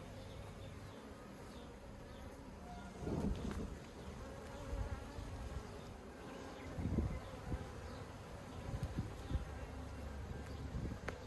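Honeybees humming steadily from an open hive under inspection, with a few soft low thumps from the frames being handled.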